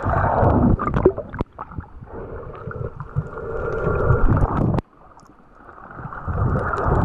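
Muffled underwater rumble of moving water heard below the surface, with a few sharp clicks and knocks. The sound drops off suddenly about five seconds in and then slowly builds again.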